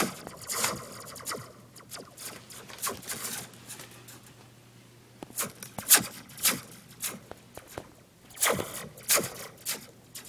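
Metal Slinky coil spring being stretched and shaken, its coils clattering and scraping against each other in irregular bursts, with a brief springy ring after some of them.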